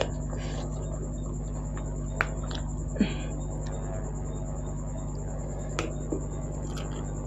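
Close-up eating sounds: a few scattered mouth clicks and smacks, with one brief crunchy burst about three seconds in, over a steady electrical hum.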